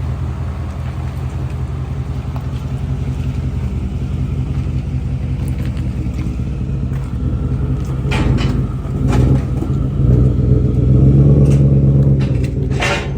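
Car engine running with a low, steady exhaust note, getting louder with revs from about eight seconds in, with a few short sharp cracks near the end.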